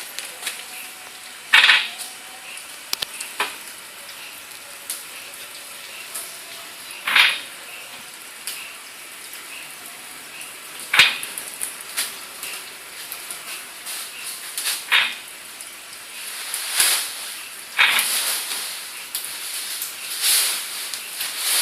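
Plastic sheet material crackling and rustling in short, irregular bursts over a steady hiss, as laminated plastic and paper sacking is handled and peeled.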